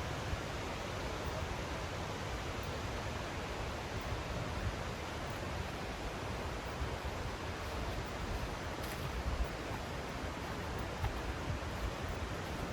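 The steady rush of a large waterfall, Naena Falls, falling in heavy volume: a dense, even noise without breaks.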